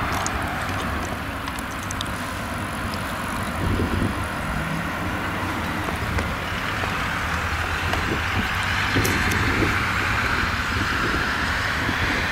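Fendt tractor's diesel engine running steadily with a low hum as it tows a rotary hay rake across the field, growing louder near the end.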